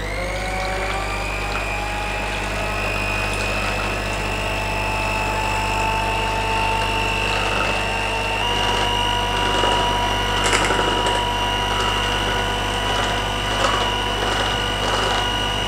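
Electric hand mixer motor starting up, its whine rising in pitch as it gets to speed, then running steadily with its beaters whisking cream and caramel in a saucepan. The pitch steps up slightly about eight seconds in, and a few faint clicks come a couple of seconds later.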